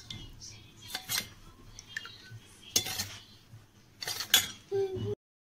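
Metal spoon clinking against a stainless steel bowl while stirring curd, with a few sharp clinks a second or two apart. The sound cuts off suddenly near the end.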